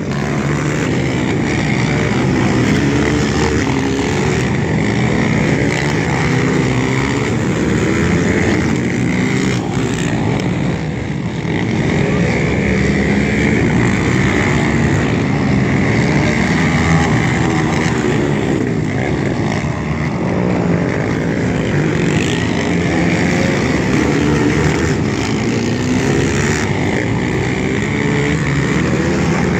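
Racing ATV engines revving up and down continuously as the quads lap a dirt flat track, several machines overlapping with pitch rising on the straights and dropping into the turns.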